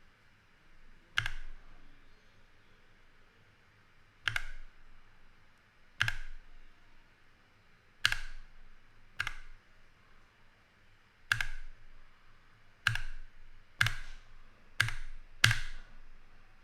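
Single keypresses on a Keychron K6 mechanical keyboard with Gateron red switches: the lamp key pressed about ten times, one to three seconds apart and quicker near the end, each press a sharp click.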